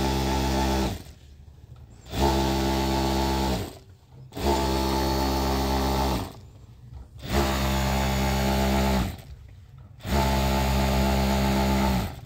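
Industrial sewing machine stitching through a thick quilted comforter, running in short spurts: a run stops about a second in, then four more runs of one and a half to two seconds follow with brief pauses between. The motor's pitch climbs as each run starts and drops as it stops.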